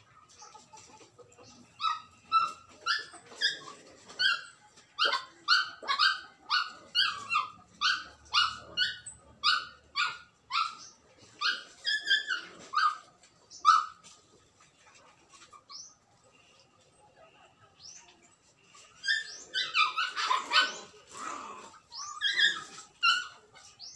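A dog barking over and over, about two barks a second, each bark short and high-pitched. After a lull it breaks into a louder, more jumbled run of barking, then gives a few more barks near the end.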